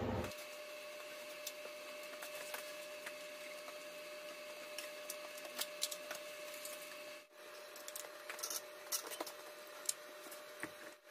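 Faint steady hum with scattered light clicks and knocks as an engine hanging from a shop crane chain is handled and guided into the engine bay; the clicks come more often in the last few seconds.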